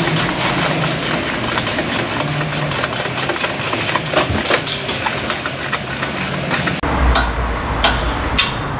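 Hand ratchet wrench clicking rapidly as it runs down the nut on a car's new upper control arm ball joint at the steering knuckle. The clicking stops about two seconds before the end, and a low steady hum takes over.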